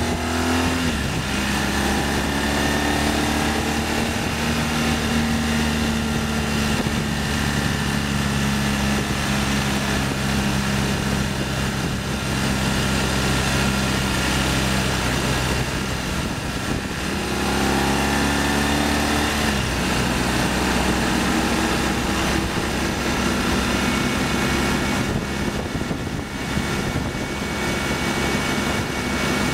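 BMW R1200ST's boxer-twin engine running as the motorcycle is ridden, with wind rushing past. The engine note climbs and then drops back just after the start, and again about 17 to 19 seconds in.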